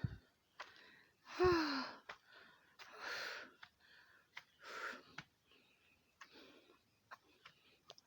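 A woman breathing hard from the effort of climbing a steep hill. About a second and a half in comes a voiced sigh falling in pitch, then heavy breaths every couple of seconds, with short clicks of her footsteps between them.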